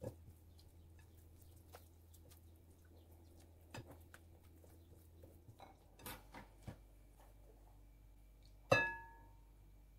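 Kitchen handling sounds: a low hum that stops about six seconds in, a few light clicks and knocks, then one sharp ringing clink of a utensil against a glass or ceramic dish near the end.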